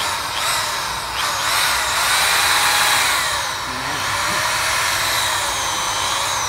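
Maxpro MPED450V 450 W corded electric drill running free with no bit load, its motor whine rising and falling in pitch several times as its speed changes.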